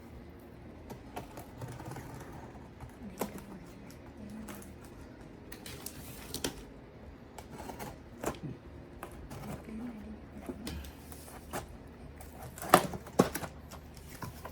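Cardboard box and packaging handled during an unboxing: scattered clicks, taps and scrapes with light rustling, and two sharper knocks near the end.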